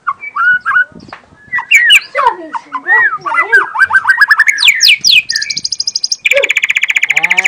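White-rumped shama singing a fast, varied song of whistled glides and trills. About five seconds in it breaks into a rapid rattling chatter.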